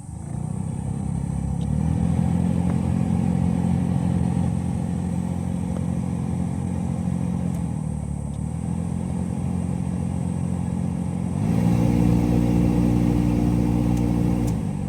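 Car heater/AC blower motor switched on and running with an abnormal humming noise. It gets higher and louder about two seconds in, drops back around eight seconds, then runs higher and louder again from about eleven seconds. It cuts off near the end.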